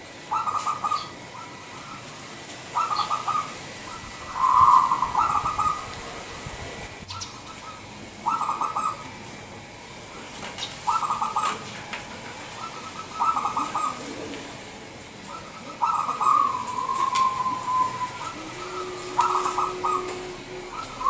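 Caged zebra dove (perkutut) cooing: short trilled coo phrases repeated every two to three seconds, one of them drawn out into a longer note about two-thirds of the way in.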